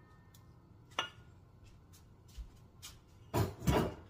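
Kitchen utensil knocks: a sharp click of a spatula or pan against a stainless steel mixing bowl about a second in, faint ticks, then two louder knocks close together near the end, as of a stainless saucepan being set down on the counter.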